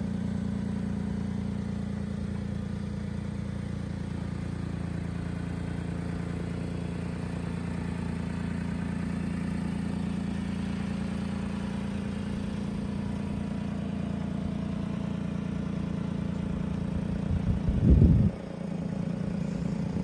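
Mitsubishi Minicab U42T kei truck's small three-cylinder engine idling steadily. A brief louder burst comes near the end.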